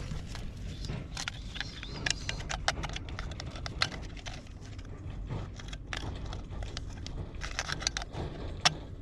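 Irregular sharp clicks and rattles over a steady low rumble, with the loudest click just before the end.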